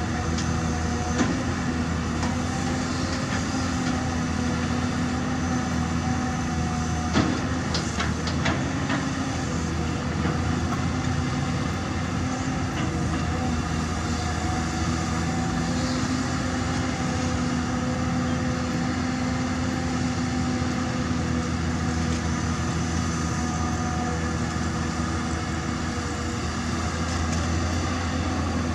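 Caterpillar 320D L long-reach excavator's diesel engine running steadily under load while it digs and lifts, with a few sharp knocks about seven to nine seconds in.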